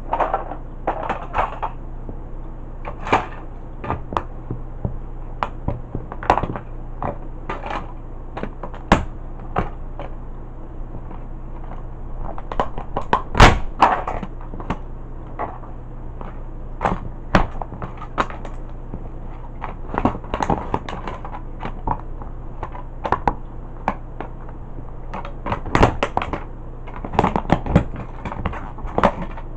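Toy tow truck's plastic body and parts cracking, snapping and crunching under cowboy boots, with irregular sharp cracks throughout and the loudest snap about halfway through.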